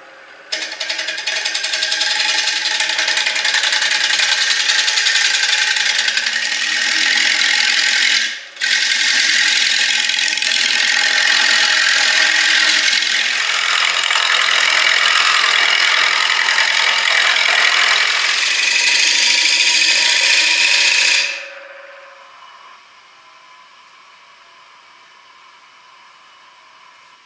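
Turning gouge cutting a spinning wooden waste block on a Record Power wood lathe: a steady, loud shaving hiss, broken off for a moment about 8 seconds in. The cutting stops about 21 seconds in, leaving a much quieter background.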